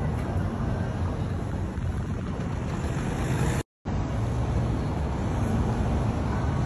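Steady low rumble of outdoor city noise, like traffic, with no voices. It breaks off for an instant a little over halfway through, then carries on.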